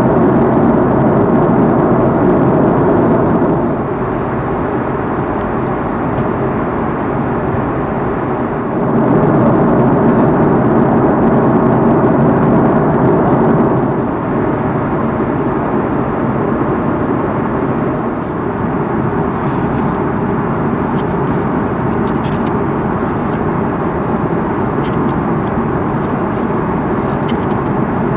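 Steady cabin noise of an Airbus A330-300 in cruise: the constant roar of airflow and its Rolls-Royce Trent 700 engines, shifting in level a few times. Faint clicks and rustles over the last ten seconds, as the pages of a paper menu are turned.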